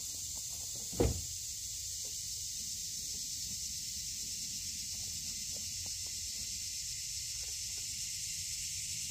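Steady high-pitched hiss of an evening insect chorus, with one low thump about a second in.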